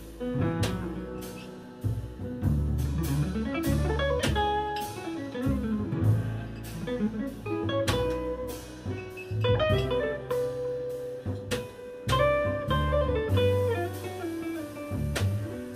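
Live jazz combo: a Heritage archtop electric guitar plays a melodic line over piano, upright bass and a drum kit with frequent cymbal strokes.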